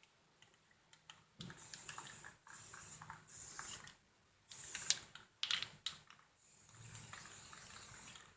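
Aerosol spray paint can spraying in several short bursts of soft hiss while a bike frame is given a coat of black paint, with a few light clicks in between.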